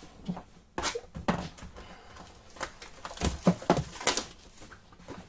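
Trading cards and their plastic holders being handled on a table: a scatter of short, sharp clicks and taps with soft rustling between them.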